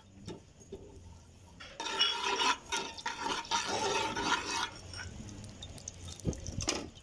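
Cumin and nigella seeds sizzling in hot oil in a metal frying pan while a spoon stirs them against the pan. The sizzle swells about two seconds in and eases off about three seconds later, with a few clicks near the end.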